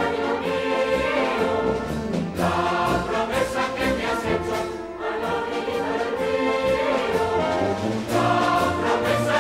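Street brass band (charanga) playing a tune: trombones, trumpets, saxophone and sousaphone over bass drum and snare.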